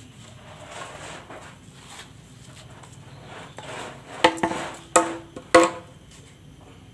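Golok (Indonesian machete), forged from an old bearing ring, chopping into a target three times with sharp strikes a little over halfway through, each with a brief ring, while its edge is tested for how long it stays sharp.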